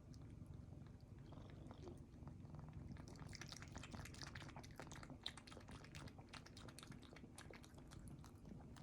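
An American Shorthair cat lapping water, faint quick clicks of the tongue coming thick from about three seconds in, over a low steady purr.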